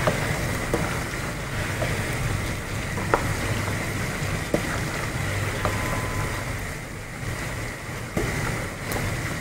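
Spoon stirring a pot of beetroot-and-meat curry, giving a few light clicks against the pot, over a steady rushing noise from the stove.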